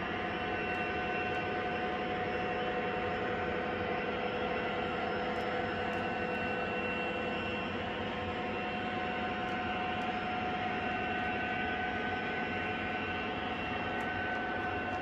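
Toy electric train running on the layout: a steady mechanical whir from motor and wheels on track, with a constant hum.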